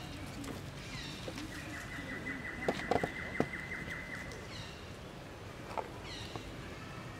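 Bird calls: short high calls that slide downward, repeated every second or so, with a steady high trill through the middle. A few sharp clicks come about three seconds in.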